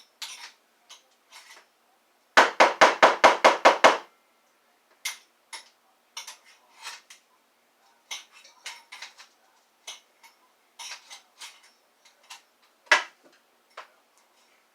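Clicks and clatter of hard plastic vacuum-wand parts being handled while a clog is pulled out, with a quick run of about ten sharp knocks, some six a second, a little over two seconds in, and one more loud click near the end.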